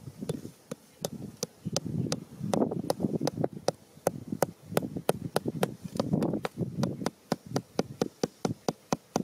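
Hammer tapping a thin bamboo stake down into sandy soil, a quick run of sharp taps, about three to four a second.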